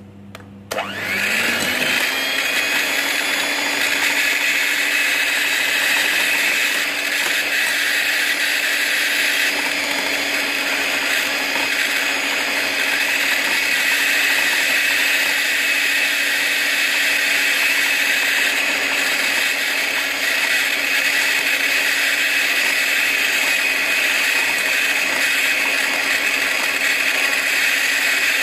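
Morphy Richards electric hand mixer switching on about a second in: its motor spins up with a rising pitch, then runs with a steady whine as the beaters whip cream. The cream has reached a ribbon consistency but is not yet at stiff peaks.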